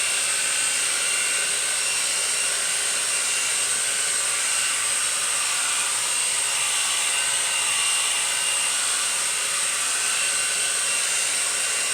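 Hair dryer running steadily on its low setting, an even whir with a faint high whine that does not change.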